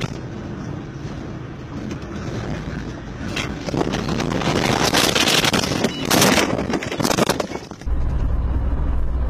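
Road and engine noise inside a moving car. Then, from about three seconds in, a storm gust rushes over the car in several loud bursts as debris flies past and strikes it. Near the end there is an abrupt cut to a steady low engine drone from another car.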